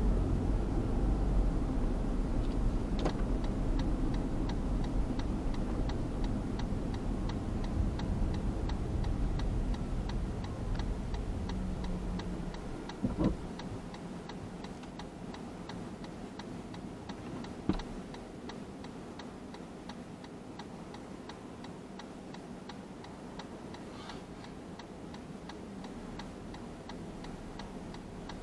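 Car turn signal ticking at an even rhythm, with the car's low road and engine rumble underneath that dies down about halfway through as the car slows to a stop. Two brief knocks stand out, one just after the rumble fades and another a few seconds later.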